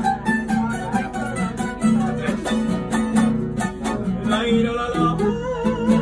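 Tuna ensemble playing an instrumental passage of a huapango: acoustic guitars strummed in a steady rhythm, with a bandurria-type lute picking the melody over them.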